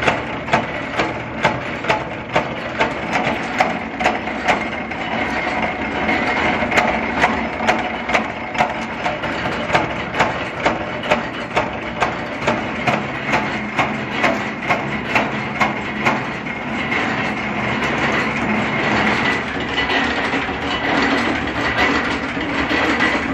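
A mechanical press ramming steel chain links fed through by hand, striking evenly about two times a second. The strokes stop about sixteen seconds in and give way to continuous machine noise.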